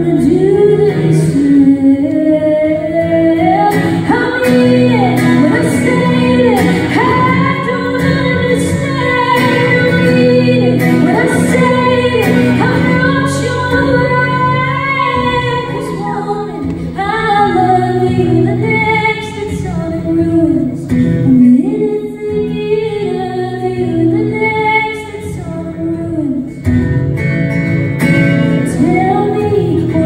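Woman singing into a microphone while accompanying herself on acoustic guitar, heard live through the hall's sound system.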